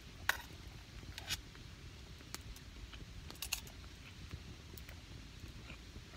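A handful of scattered light clicks and taps, as of an eating utensil against a camp cooking pot while eating bacon and rice, over a low steady rumble.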